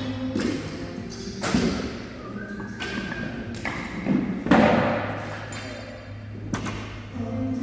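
Loaded barbells and weight plates thudding onto a rubber gym floor, about five separate impacts with a metallic ring after each, the heaviest about four and a half seconds in. Gym music plays underneath.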